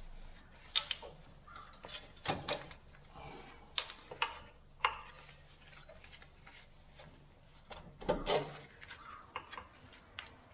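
Intermittent clicks and knocks of hydraulic hose quick-couplers being handled, uncoupled and reconnected after the line pressure has been released. A cluster of louder knocks comes about eight seconds in.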